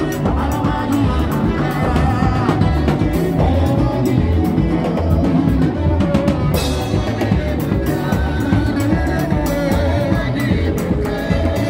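Live band music played through a church sound system: drums keep a steady, driving beat over deep bass notes.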